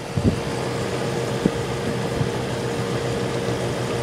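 Magic Chef 25-pint dehumidifier running with a steady hum and airflow, with a few light irregular knocks. Its fan motor is failing: it turns far too slowly and its shaft has end play, which the owner thinks might be the bearings.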